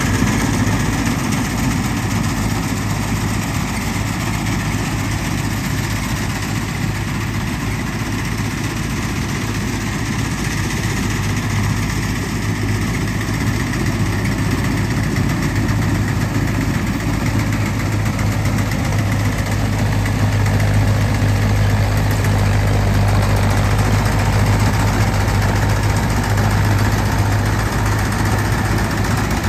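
A tractor's diesel engine running steadily under load, powering a tractor-mounted mini combine harvester as it cuts rice. A strong, even low hum, with a slight rise in level in the second half.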